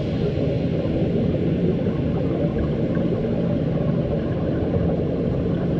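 Underwater ambience picked up by a dive camera: a steady low rumble with a faint low hum.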